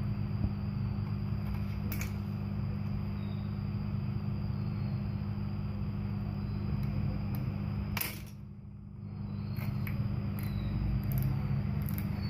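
Faint clicks and rustles of a thin cardboard cigarette pack being peeled apart by hand, with a sharper click about eight seconds in and several more near the end, over a steady low hum.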